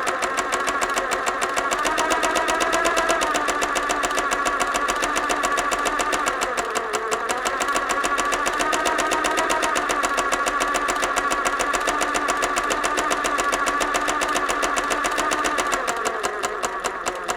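Electric sewing machine running continuously: a fast, even clatter of needle strokes over a motor whine, its pitch wavering slightly as the speed changes.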